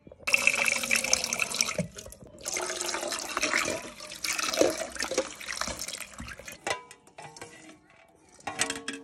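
Water running from a tap into a steel pot, in two bursts of a second or two each, followed by lighter splashes and small knocks as duck eggs are handled in the pot.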